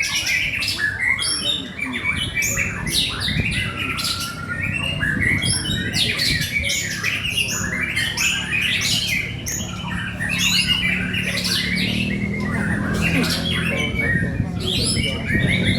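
White-rumped shama (murai batu) singing a fast, unbroken stream of short, varied notes and quick pitch slides.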